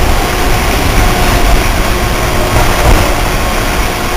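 Loud, steady rumble and hiss of subway trains in an underground station, with a few faint steady tones over the din.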